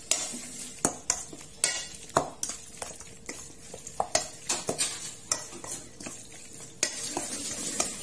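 Metal spoon stirring wet minced raw buffalo meat and blood in a stainless steel bowl, with irregular clinks and scrapes of spoon against bowl throughout.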